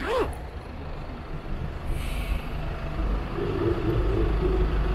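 City road traffic heard from a moving motorcycle, over a steady low rumble. A short hiss comes about two seconds in, and a steady hum from a heavy vehicle joins at about three and a half seconds.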